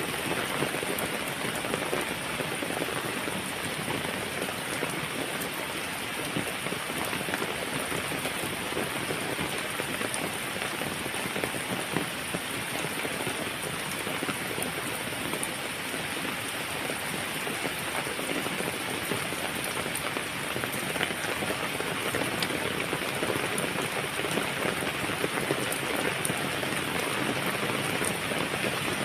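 Heavy rain falling steadily, with many separate raindrops clicking through the even hiss.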